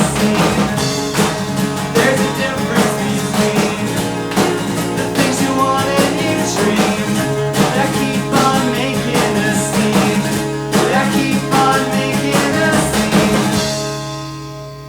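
Rock band music with guitars and a steady beat. Near the end the playing stops on a last chord, which rings on and fades.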